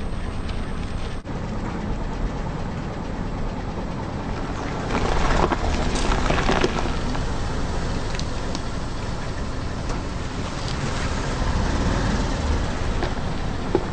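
Car engine idling as a tyre rolls over a head of broccoli and a cauliflower, the florets crackling and crunching under it about five to seven seconds in, with a few sharp snaps later.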